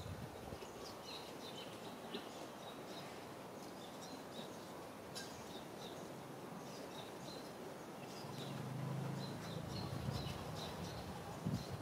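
Outdoor ambience with many short, high bird chirps scattered throughout over a steady background hiss. A low hum swells for a couple of seconds past the middle, and a few knocks come near the end.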